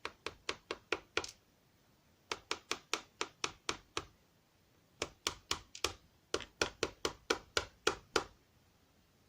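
Rapid, evenly spaced sharp clicks, about five a second, in four runs separated by short pauses.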